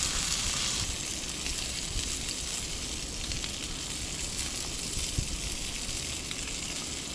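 Chicken, potatoes and carrots sizzling in a hot RidgeMonkey pan as raw sausages are laid in by hand. The sizzle is strongest in the first second and then settles to a steady hiss, with a small knock about five seconds in.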